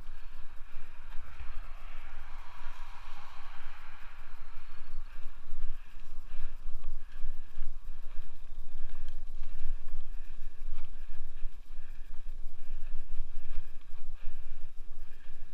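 Wind buffeting the helmet-camera microphone as a hardtail mountain bike rolls down a leaf-covered dirt singletrack, the tyres hissing over the trail, with a brighter stretch of hiss early on.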